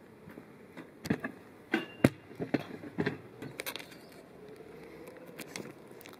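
A series of irregular sharp clicks and knocks, most of them in the first few seconds, over a low background noise.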